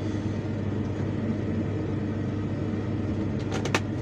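Hyundai R480LC-9S excavator's diesel engine idling steadily with the breaker hammer stopped, a low even hum. Two short clicks come near the end.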